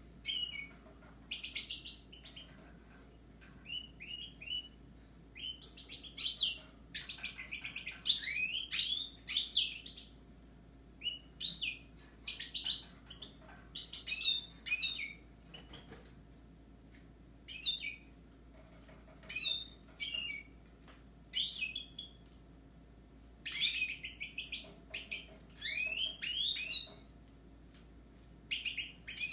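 Caged goldfinches and Raza Española canaries singing: repeated bursts of fast, twittering, warbling phrases separated by short pauses.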